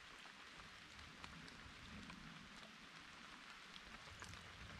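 Faint, steady patter of light rain, with scattered small ticks.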